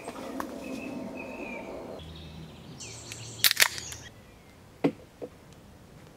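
Birds chirping over outdoor ambience, the chirps mostly in the first two seconds. A pair of sharp clicks with a brief hiss comes about three and a half seconds in, and softer knocks follow near five seconds.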